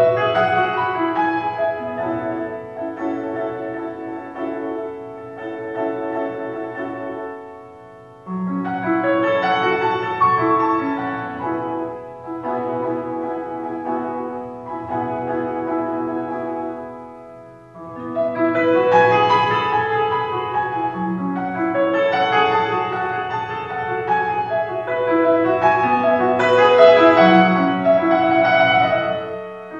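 Instrumental music led by piano, in three phrases that fade and start again about 8 and 18 seconds in.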